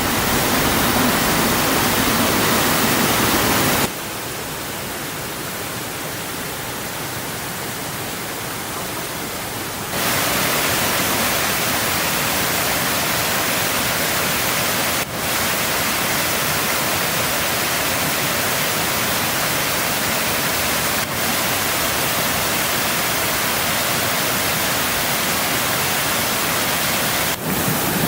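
Waterfall rushing steadily, water pouring over a natural rock slide. It is quieter for a few seconds from about four seconds in, then louder again, with a few very short dips later on.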